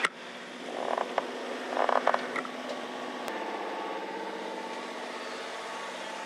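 Sailboat's inboard auxiliary engine running under way, a steady drone heard from inside the cabin. A few knocks and bumps come at about one and two seconds in.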